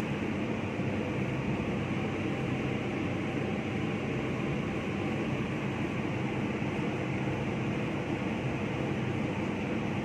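Steady mechanical drone from a running machine, even and unbroken throughout.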